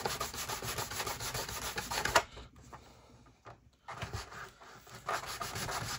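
Sandpaper rubbed back and forth by hand along the cut edge of a white sheet, trimming the edge of a model railway platform. Quick scraping strokes run for about two seconds, pause, then start again near the end.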